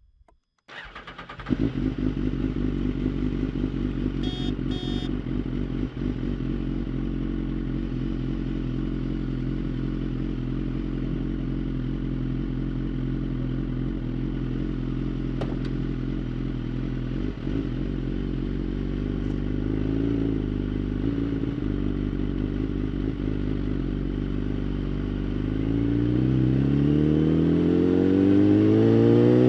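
2011 BMW S1000RR's inline-four engine with a Bodis exhaust starting up about a second in, then idling steadily. Near the end the engine speed rises in a steady climb.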